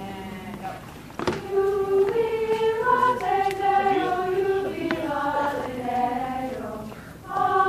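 Teenage mixed choir singing in several parts, holding long notes that swell in loudly about a second in, just after a single sharp knock.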